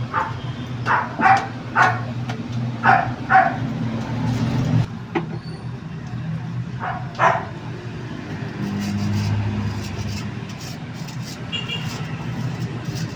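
A dog barking several times, in short separate barks clustered in the first few seconds and once more a little past halfway. Under the barks, a low steady engine hum cuts off suddenly about five seconds in.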